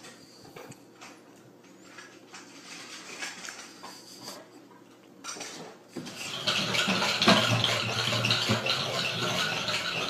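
A small ceramic dish scraping and clinking on a stone countertop as a cat pushes it about. From about six seconds in, a louder, continuous clattering takes over.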